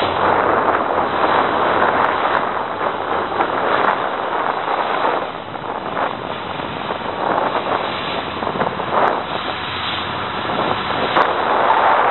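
Wind rushing over the microphone aboard a boat underway, a steady roar of noise that swells and eases.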